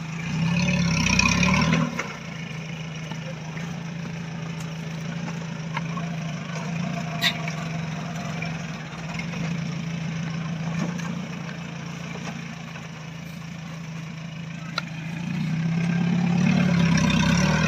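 Off-road Jeep's engine running at low revs as it crawls over a steep dirt slope, revved up harder for a second or two at the start and again near the end. One sharp click about seven seconds in.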